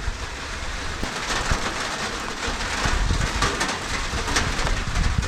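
Heavy rain falling in a hunting blind, with many separate drop hits close to the microphone. Wind gusts rumble unevenly on the microphone underneath.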